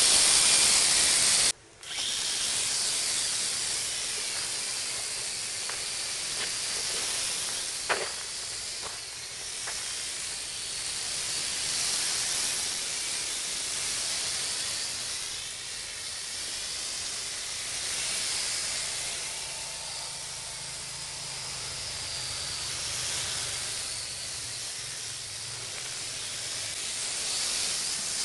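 WLtoys V929 mini quadcopter's four tiny motors and propellers running with a high, steady hiss, loudest at first while it hovers close by, then fainter and wavering as it flies farther off. The sound cuts out for a moment about a second and a half in, and there is one sharp click about eight seconds in.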